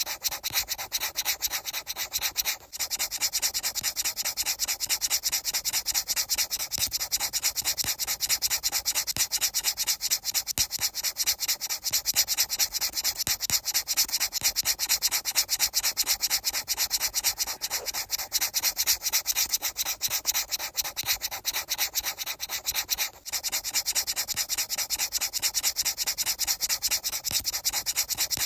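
Rapid, even rubbing or brushing strokes, a dry scratchy sound kept up at a steady pace, with two brief pauses, one about three seconds in and one near the end.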